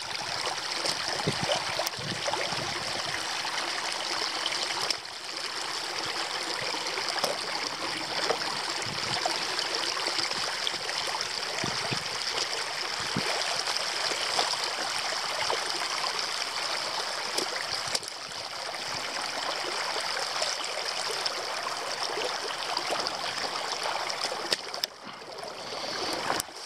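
Water streaming steadily over and through a beaver dam, a constant rushing hiss, with a few short knocks scattered through it.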